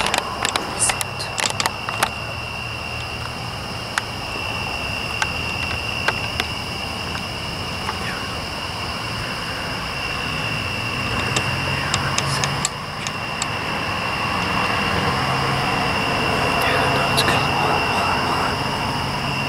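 A steady, unbroken high-pitched drone over a low hum, with a cluster of sharp clicks in the first couple of seconds and a few more later.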